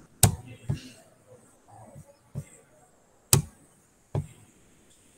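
About five sharp clicks at irregular intervals, the loudest about a quarter-second in and a little past the middle, each followed by a quieter one.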